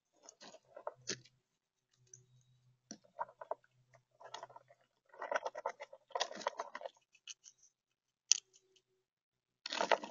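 Gray squirrel rooting through a tub of acorns, the nuts clicking and rattling against each other in several short spells, the loudest near the end.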